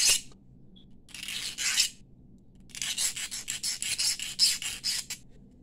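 Metal hand file rasping across the end of a brass bangle wire, smoothing the cut end: one longer stroke, then a run of quick short strokes, about five a second, for a couple of seconds.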